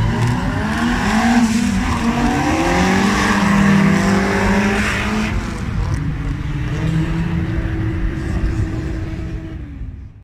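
Two Opel drag-race cars accelerating hard from the start line. Their engine notes climb in pitch again and again through the gears over the first five seconds, then settle and fade as the cars pull away down the eighth-mile strip.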